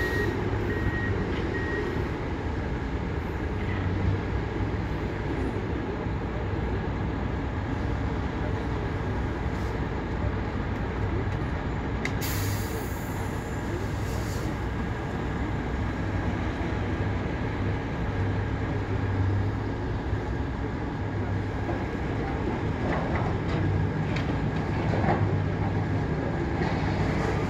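Steady drone of heavy diesel engines from a semi-truck and scrap-yard machinery running. A short repeating high-pitched back-up beep sounds in the first couple of seconds, and a burst of hissing air comes about halfway through.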